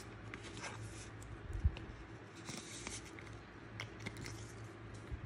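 Plastic card sleeve and trading card rustling and clicking as a card is handled and slid into a clear sleeve, with one dull low bump about a second and a half in.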